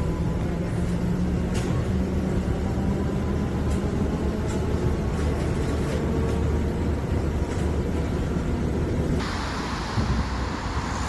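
Steady low rumble of a moving vehicle, with a faint steady hum and light ticks; about nine seconds in it turns to a brighter hiss.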